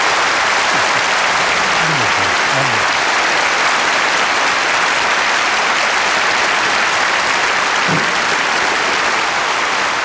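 Audience applauding steadily, following the end of a speech.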